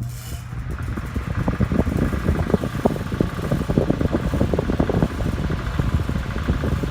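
1960s Windsor (Lakewood) K-10 10-inch table fan with a Redmond motor coming up to speed on its single speed: motor hum and rushing air that grow louder over the first couple of seconds, with a steady rattling vibration that the owner thinks may be an out-of-balance blade.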